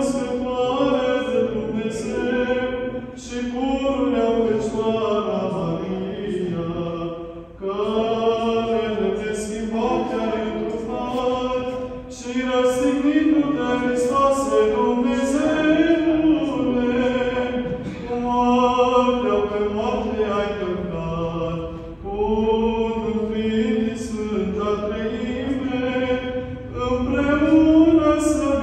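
Choir singing Orthodox liturgical chant in sung phrases a few seconds long, with short breaks between them.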